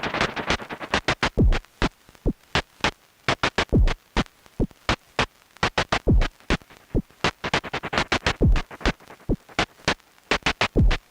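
Erica Synths Perkons HD-01 drum synthesizer playing a sparse electronic beat: a deep kick about every two and a half seconds, with short clicky percussive hits scattered between.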